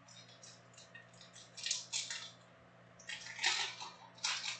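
Foil trading-card pack wrapper crinkling and crackling as it is torn open by hand, in irregular bursts that grow denser and louder after about three seconds.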